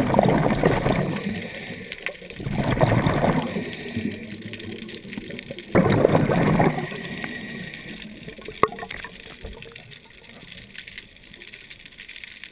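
Underwater, a scuba diver's exhaled bubbles rushing from the regulator: three rushes about a second long, a few seconds apart, then quieter, with a single sharp click about two-thirds of the way through.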